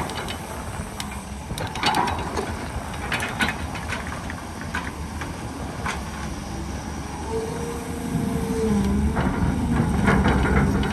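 Hydraulic excavator at work: the diesel engine runs steadily under scattered metallic clanks and knocks. About seven seconds in a higher, wavering engine tone comes in and the sound grows louder.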